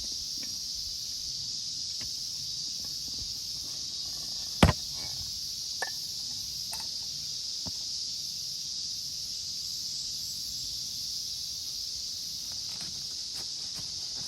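Steady high-pitched drone of cicadas, with one sharp knock about four and a half seconds in and a few faint clicks.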